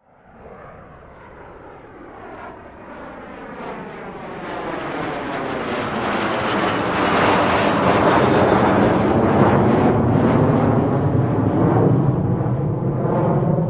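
Jet aircraft flying past: its engine noise starts faint and swells over about eight seconds to its loudest, then stays loud. A faint high whine falls slightly in pitch as it passes.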